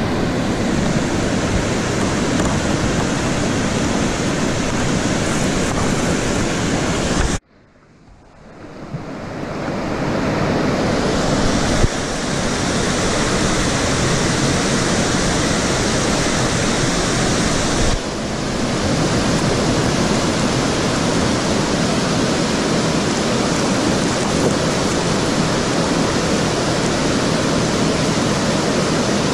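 Steady loud rush of white water pouring over a river weir and churning in the foam pile below. About seven seconds in it cuts out suddenly, then fades back up over a few seconds.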